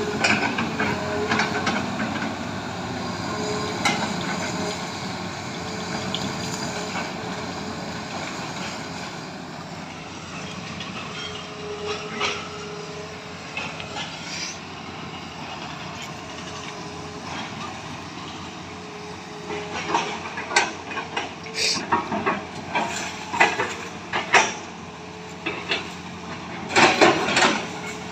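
Heavy earthmoving machinery running steadily, joined in the last third by a run of sharp knocks and clanks that are loudest near the end.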